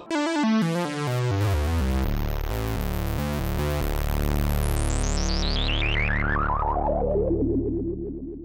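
Ensoniq SQ-80 synthesizer playing a patch: quick stepping low notes that settle into a held, dense tone, whose brightness then sweeps steadily downward as it fades out near the end.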